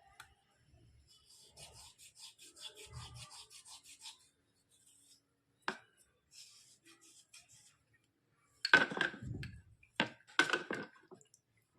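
Chalky white slate pencils being scraped clean: quick, even rasping strokes, a pause, a short second run of scraping, then a few louder sharp knocks and scrapes near the end.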